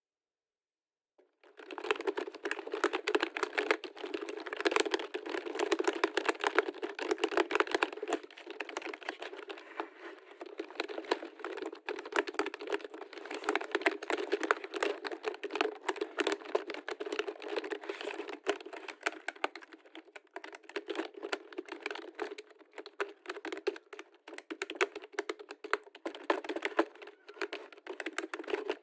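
Computer keyboard typed on rapidly and continuously, a dense stream of key clicks close to the microphone, starting about a second in after a moment of silence.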